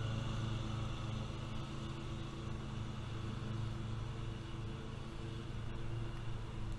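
Great Dane Super Surfer stand-on mower's engine running steadily under mowing load, a continuous even drone as the mower moves away across the lawn.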